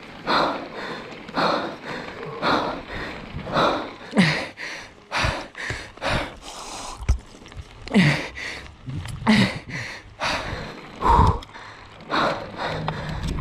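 A mountain biker breathing hard and fast close to the microphone, a loud gasping breath every half second to a second, a few with a short voiced grunt, from the exertion of racing. Tyres rattle on loose gravel underneath.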